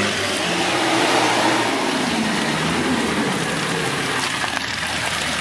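Land Rover Defender's engine revving as it pulls through deep mud, its pitch rising and falling.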